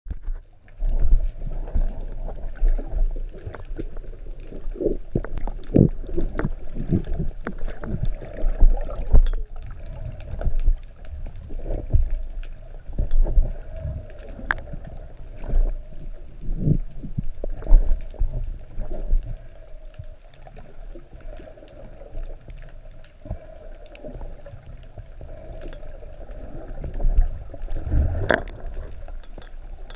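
Underwater sound picked up by a speargun-mounted camera in its housing during a freedive: muffled water noise with irregular low knocks and thumps, over a faint steady hum. One sharper click comes near the end.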